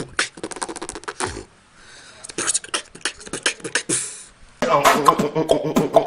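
Human beatboxing: a fast rhythm of mouth clicks and snare-like hits, a short faint hissy gap, then more quick hits. Near the end a louder, continuous pitched sound takes over.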